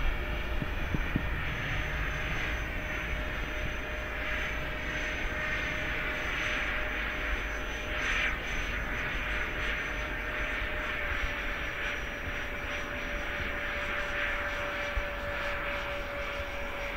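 Two 50 mm electric ducted fans of a depron model Boeing 747 in flight: a steady whine over a rush of air, the pitch easing down a little about two-thirds of the way through. Wind rumbles on the microphone underneath.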